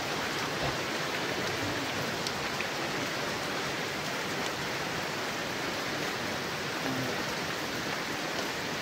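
Steady rain falling on trees and wet ground, an even hiss that does not change.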